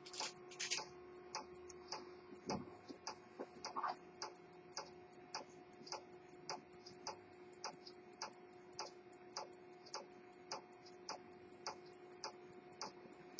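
The escapement of an E. Mathey-Tissot minute repeater pocket watch ticking faintly and steadily, a few beats a second. A few louder clicks come in the first seconds, over a faint steady hum.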